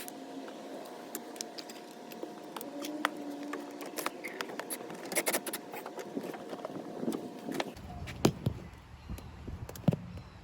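Scattered light metallic clicks and clinks, irregular and unevenly loud, from hand tools and bolts as the HVAC housing's mounting bolts are started by hand.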